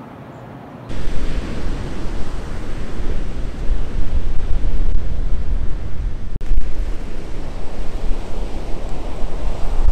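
Ocean surf breaking on a beach, with strong wind buffeting the microphone in a low rumble, starting abruptly about a second in.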